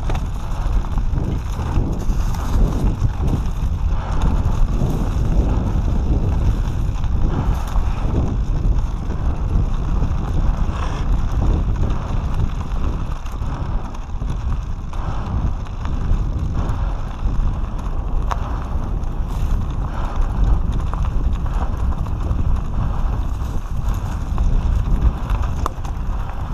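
Mountain bike running fast down a dirt singletrack: heavy wind buffeting on the microphone over the tyres on dirt, with constant knocking and rattling from the bike over bumps.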